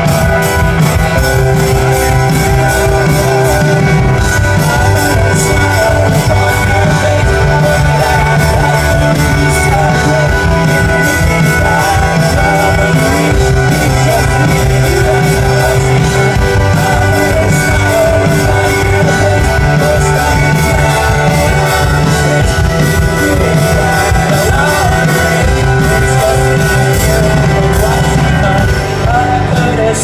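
Live indie rock band playing loudly, with singing over drums, keyboards and violin.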